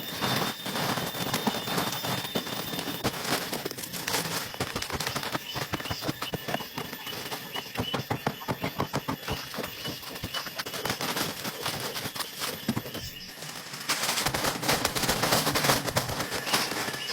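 A dense, irregular patter of many small sharp impacts, like tapping or crackling, that grows busier and louder about three-quarters of the way in.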